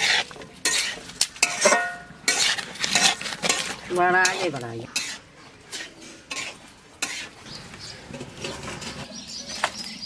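Metal spatula scraping and clanking against an iron wok as chopped bottle gourd and dry fish are stirred and fried, with a light sizzle. The strokes come thick for the first five seconds and then thin out; a brief wavering call cuts in about four seconds in.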